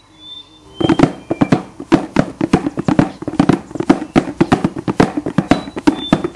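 Rapid rhythmic percussion: sharp drum strikes several times a second, starting about a second in.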